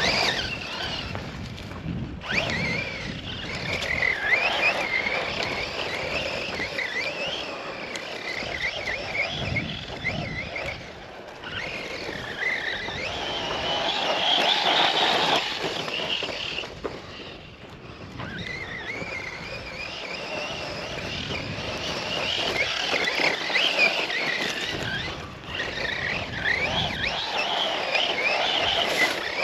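Losi RC truck's brushless electric motor whining up and down in pitch as the throttle is worked, over the rush of tyres and wind, the sound swelling and dropping away several times as the truck drives off and comes back.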